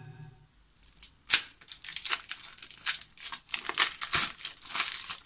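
Plastic shrink-wrap crinkling and tearing as it is peeled off a sealed deck of cards: a run of irregular crackles starting about a second in, with one sharp snap near the start of it.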